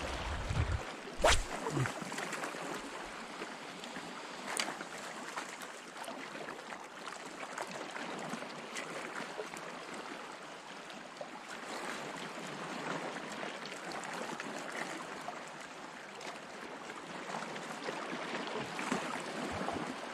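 Calm sea lapping and washing against shoreline rocks, a steady even hiss. A sharp click about a second in and a smaller one a few seconds later.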